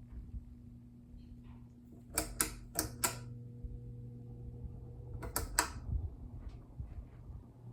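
Home Decorators Collection Windward ceiling fan's motor humming steadily. Sharp clicks from its pull-chain switch come four times about two seconds in and twice more near five and a half seconds. The motor's tone shifts between the clicks as the speed changes.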